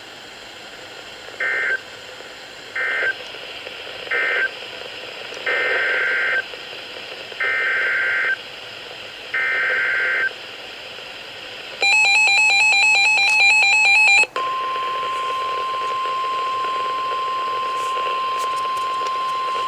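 NOAA Weather Radio EAS data bursts: three short bursts of digital warble, the end-of-message code, then three longer bursts, the SAME header of the next alert. About twelve seconds in comes the loudest sound, a two-second burst of rapidly alternating tones. Then the steady 1050 Hz weather radio warning alarm tone sounds.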